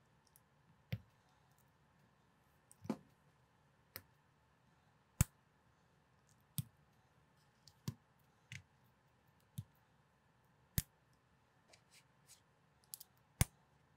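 Small plastic building bricks clicking as they are pressed together and handled: a dozen or so sharp, short clicks at irregular spacing, roughly one a second.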